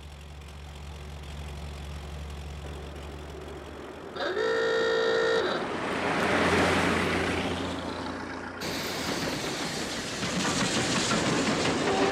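A low steady hum, then a train whistle blows once for about a second and a half, followed by the rumble and clatter of a moving train. A shorter whistle sounds near the end.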